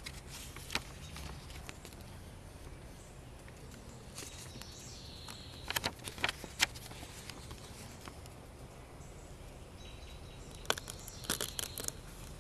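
Quiet outdoor background noise with a few scattered sharp clicks and rustles, a cluster about six seconds in and more near the end as a sheet of paper is handled.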